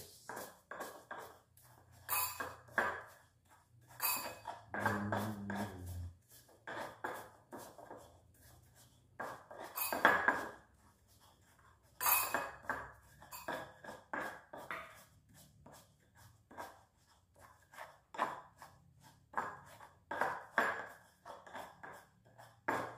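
Stone pestle grinding dry cracker biscuits in a stone mortar (cobek): repeated scraping and knocking strokes, about three a second, with a few harder knocks, as the crumbs are crushed to a fine powder.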